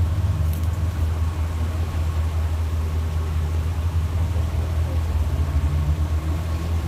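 A vehicle engine idling: a steady low hum with a fine, even flutter.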